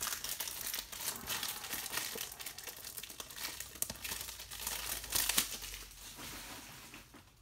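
Plastic shrink wrap being peeled off a Blu-ray case and crumpled: a dense crinkling with small crackles, loudest about five seconds in and dying down near the end.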